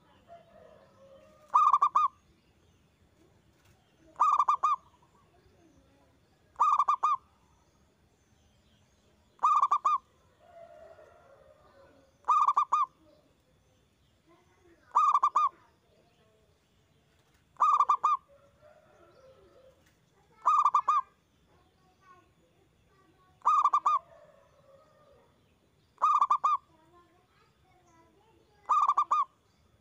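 Zebra dove (perkutut) cooing its loud song, one short phrase about every two and a half seconds, eleven times in a steady rhythm. Faint softer sounds lie between the phrases.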